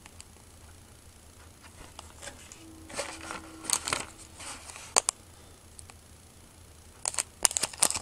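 Handling noise from plastic model-kit parts and their plastic bags: light crinkling and small sharp clicks in a bout about three seconds in, and a quicker cluster of clicks near the end.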